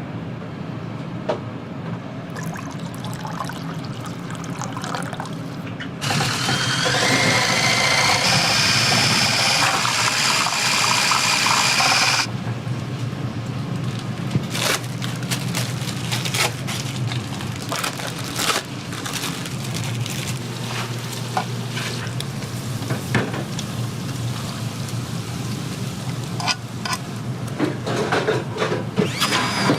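Food-prep kitchen sounds: a louder rushing, liquid-like stretch of about six seconds, then a run of clatter and small knocks over a steady background.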